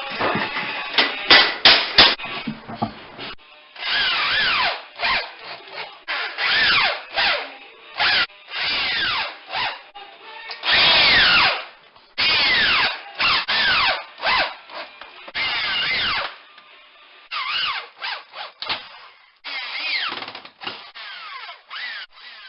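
Power drill driving screws in short trigger bursts, its motor whining up and winding down with each pull, fastening metal corner bead to drywall. A few sharp knocks come in the first couple of seconds.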